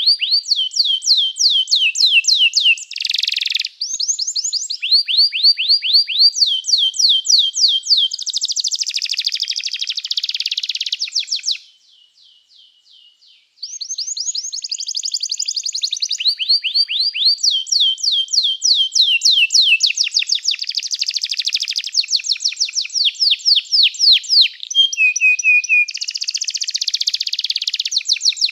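Domestic canary singing a long song of rapid trills, each a fast run of repeated notes, moving from one trill to the next; it drops to faint notes for about two seconds around twelve seconds in, then carries on.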